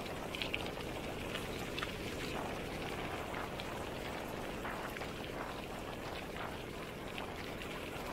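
Bicycle tyres rolling over a loose gravel road: a steady crunching hiss with scattered small clicks of stones.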